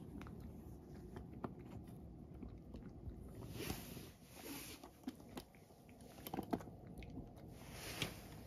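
A cat crunching and chewing dry kibble treats from a bowl, with irregular sharp crunches.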